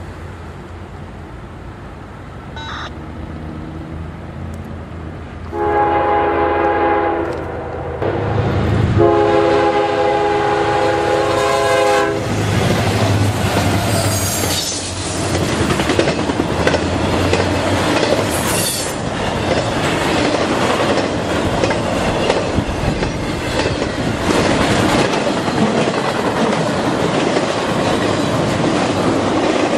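Diesel freight locomotive's multi-note air horn sounding two long blasts as it approaches. Then the locomotive and a double-stack intermodal train roll past close by, a loud steady rush of wheel-on-rail noise and clatter with two brief high squeals.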